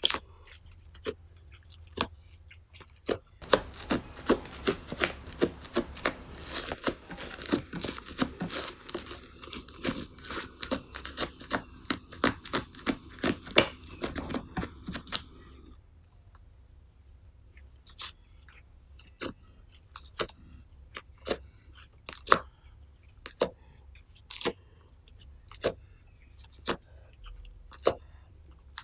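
Foaming slime being stretched off a table and pressed by hand, making sticky clicks and snaps. The clicking is dense and crackling from about three seconds in to about the middle, then thins to single clicks about once a second.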